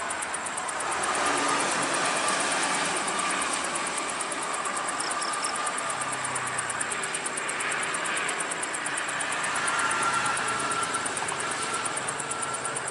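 Steady highway traffic: tyre noise and engine sound of buses and cars passing on a toll road, swelling as vehicles go by about a second in and again around eight and ten seconds in.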